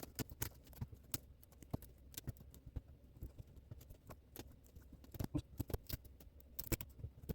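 Scattered light clicks, taps and scrapes of hand work at a wall, irregular and without any motor sound, as the marked hole is started.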